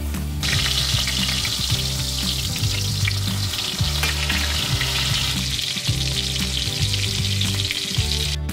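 Breaded pork schnitzels frying in hot oil in a stainless steel pan: a steady, loud sizzle that starts about half a second in and stops just before the end. Background music plays underneath.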